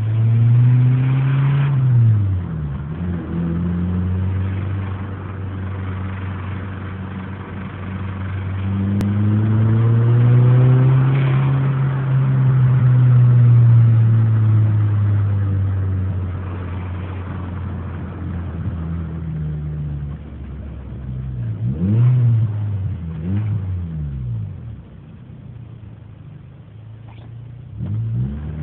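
Honda D15 inline-four engine idling and being revved several times: a short rev near the start, one long rev in the middle, then quick blips. The owner hears a knock in it and can't tell whether it comes from the cylinder head or the bottom end.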